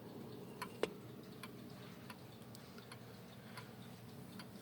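1910 Gustav Becker Vienna weight-driven wall clock ticking faintly: its escapement, which the owner takes for a deadbeat or half-deadbeat type, beats at about two ticks a second.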